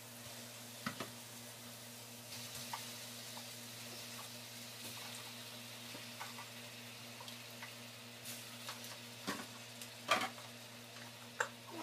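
Raw chicken wings sizzling as they are laid one by one into a hot frying pan to sauté. The sizzle builds about two seconds in, with a few sharp knocks of pieces or utensils against the pan, the loudest about ten seconds in.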